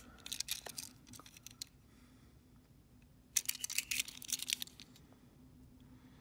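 A small die-cast toy car handled and turned over in the fingers: two short clusters of light clicks and taps, at the start and a little after three seconds in.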